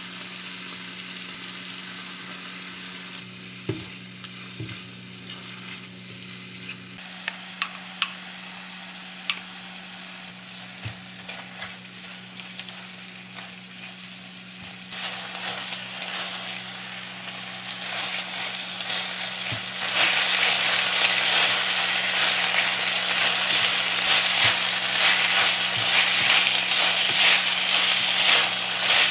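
Food frying in a hot pan. At first there is only a steady low hum and a few light clicks; the sizzle starts about halfway through and gets much louder about two-thirds of the way in.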